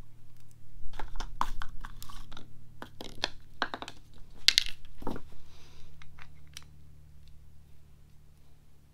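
A run of small clicks, knocks and clatters as a screwdriver, the metal fuel valve body and a plastic parts cup are handled and set down on a workbench, the loudest about four and a half seconds in, then a few faint clicks as a screwdriver goes to work on the valve's screws. A steady low hum runs underneath.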